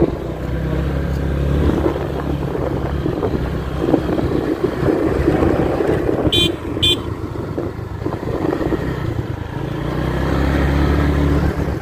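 Motorcycle engine running, with two short high horn beeps about six and a half seconds in.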